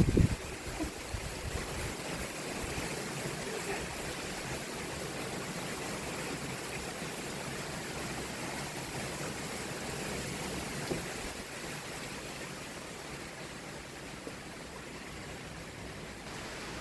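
Heavy rain falling steadily as an even hiss, easing slightly in the second half. A brief low thump comes right at the start.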